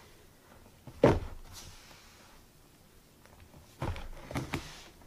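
Dull knocks of a mixing bowl, container and utensils being handled on a worktop while the bath truffle batter is moved back into its container: one sharp knock about a second in, then a quick cluster of knocks near the end.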